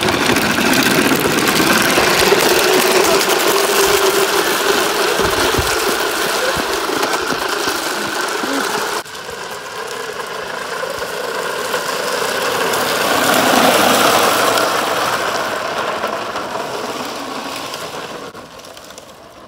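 Hard plastic wheels of a small children's trike rolling and skidding sideways on wet asphalt under an adult rider: a loud, continuous rolling and scraping noise. It breaks off abruptly about nine seconds in, starts again, swells, then fades near the end.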